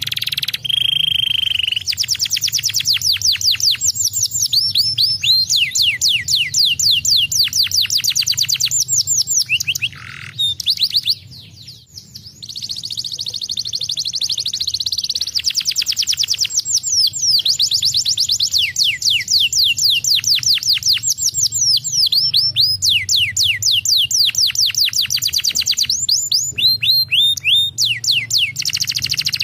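Domestic canary singing: long runs of rapid trills, each a fast string of falling whistled notes, with a brief pause about ten seconds in before the song resumes.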